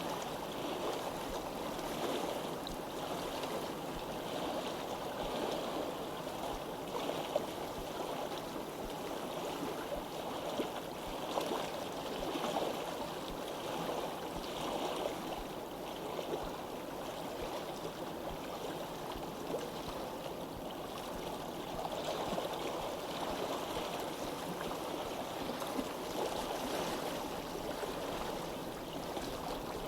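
Stream of water flowing steadily, with brief small splashes here and there.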